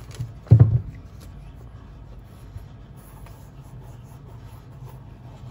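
Hands handling a pair of suede-and-mesh New Balance 574 sneakers, with faint scuffing and rubbing against the shoes. About half a second in there is one short, louder low thump.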